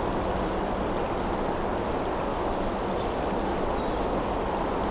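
Steady rushing of a small stream flowing past close by, an even, unbroken wash of water noise.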